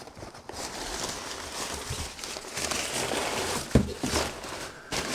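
Packing paper rustling and cardboard scraping as a box is unpacked, with a sharp knock about two-thirds of the way through as the boxed product is lifted out.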